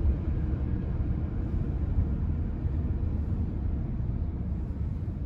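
Steady low rumble of a car driving, heard from inside the cabin: engine and tyre noise.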